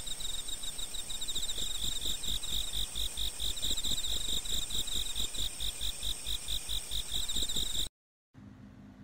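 Computer-generated sound composition of loud, dense cricket-like chirping: a high-pitched trill pulsing about five times a second, with a low thud on each pulse. It cuts off suddenly about eight seconds in, leaving a faint low hum.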